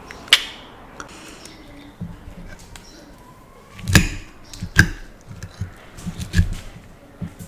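A sharp click near the start, then a metal fork stabbing into leafy salad and clicking against the plate, several sharp clicks and soft thuds over the last few seconds.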